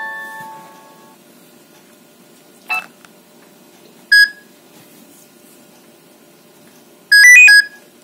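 The last notes of a Nokia 3230 ringtone preview fade out through the phone's speaker. Then come short electronic beeps from the phone: a faint one, a loud single beep, and near the end a brief burst of a few quick high notes, typical of key tones while a ringtone list is scrolled.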